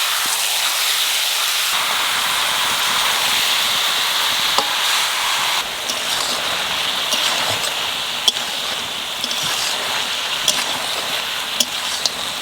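Onions and chicken pieces sizzling in hot oil in a pan: a steady hiss, with a few sharp clicks of a spoon stirring against the pan in the second half.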